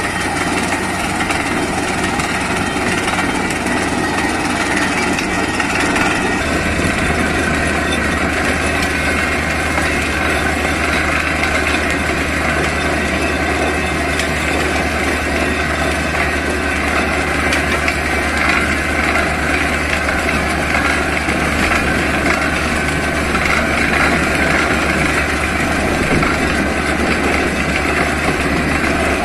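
Borewell drilling rig running steadily: a loud, constant engine and compressor noise with a steady low hum that shifts in pitch about six seconds in.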